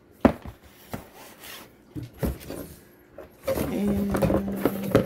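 Cardboard boxes being handled: a few short knocks and scrapes as a long cardboard kit box is pulled out of its shipping box. About three and a half seconds in comes a louder stretch of handling noise, with a steady low held tone lasting about a second.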